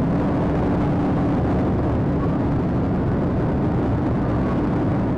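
Steady road, wind and engine noise inside a police patrol car running at about 105 mph during a pursuit.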